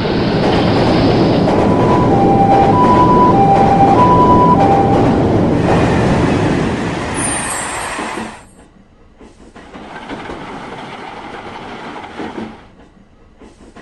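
A train passing a railway level crossing: loud rushing rumble, with the crossing's warning bell ringing in two alternating notes for a few seconds and a brief high squeal. The noise cuts off suddenly about eight seconds in, then a quieter stretch of train noise follows.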